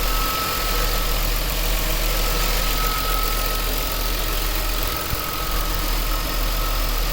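2000 Nissan Maxima's V6 engine idling steadily, with a thin steady whine over the running. The engine is not yet fully warm and is not yet making its grinding knock.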